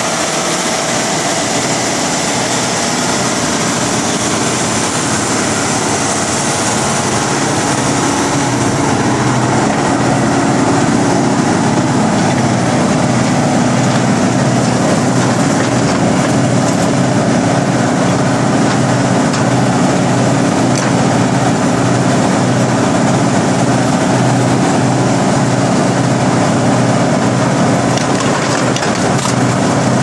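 Morbark 40/36 whole-tree chipper running steadily with its engine on, a loud, even mechanical drone that grows slightly louder about a third of the way in.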